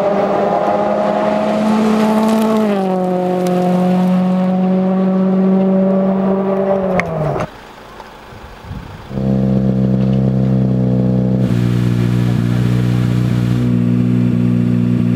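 Ford Fiesta rally car engine held at steady high revs, its pitch dipping slightly about three seconds in and then falling sharply about seven seconds in as the sound drops away. After a short lull a steady, lower engine note starts abruptly and holds.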